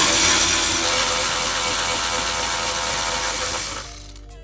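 Handheld power tool with a 10 mm socket running steadily for nearly four seconds, spinning out a bolt, then stopping.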